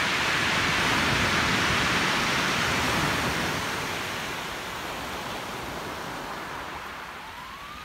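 Small waves breaking and washing up a shingle beach: a steady hiss of surf, loudest for the first few seconds and easing off after.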